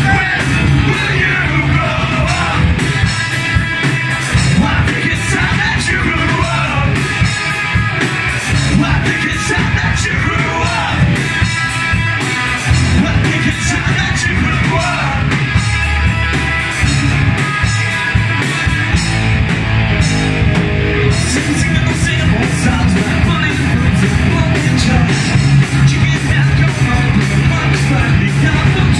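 Live punk rock band playing loudly: electric guitars, bass and drums, with a vocalist shouting and singing into a microphone.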